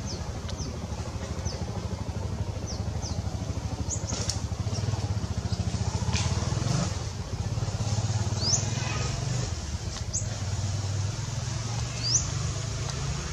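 A motor vehicle engine running steadily with a low hum, while small birds give short, high chirps every second or two.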